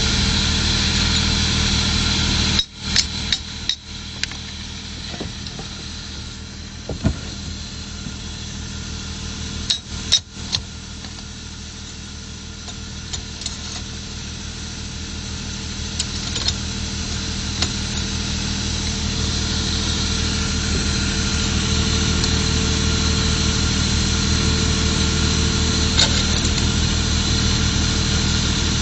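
Steady hum of an engine running in the background, with scattered sharp metal clicks and knocks as a formwork tensioner clamp is slid onto a tie rod and tightened by hand. The knocks come in a cluster about three seconds in, again around ten seconds, and singly later.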